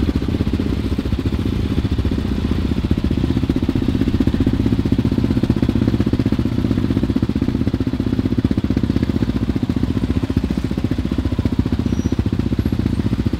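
Yamaha Raptor 700 sport quad's single-cylinder four-stroke engine running at low, steady revs, with an even thumping exhaust note.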